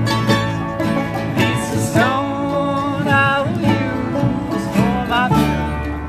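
Bluegrass string band playing: upright bass walking steadily underneath, acoustic guitar and mandolin picking, with a lead melody that slides between notes.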